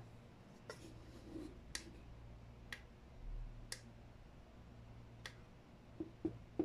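Sharp clicks, roughly one a second, from the knobs and buttons of a V8 live sound card being worked by hand, with a few softer knocks near the end. A faint steady low hum runs underneath.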